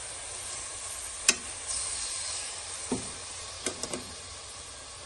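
Raw chicken pieces sizzling in hot oil with garlic in a metal pot, a steady frying hiss. A steel ladle stirring them knocks against the pot sharply once about a second in, then lightly a few times around three to four seconds.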